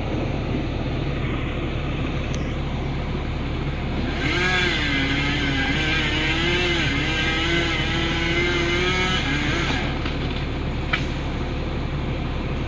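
Heavy engine-driven machinery running steadily with a loud low rumble. From about four seconds in, a wavering, pitched whine rises over it for several seconds, then fades out.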